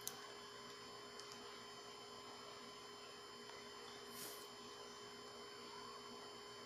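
Near silence: a faint steady electrical hum, with a sharp click just after the start, two small ticks a little over a second in, and a brief rustle about four seconds in as the plastic sunglasses are handled.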